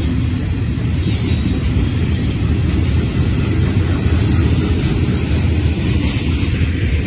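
Freight train cars (covered hoppers and tank cars) rolling past on the rails, a steady, loud, low noise of wheels on track with no break.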